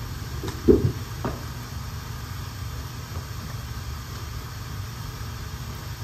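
Steady low drone of a running carpet-cleaning machine, its engine and vacuum heard through the house. A dull thump about two thirds of a second in, with a lighter knock half a second later.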